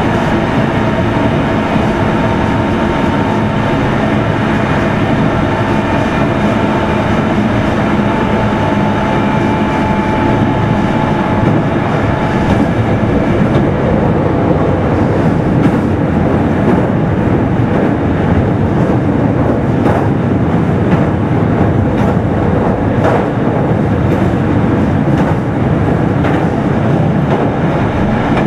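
Meitetsu 3100 series electric train at speed, heard inside motor car Mo 3212: steady wheel-on-rail rumble with a faint whine from the motors in the first ten seconds or so, and a few sharp clacks over rail joints later on.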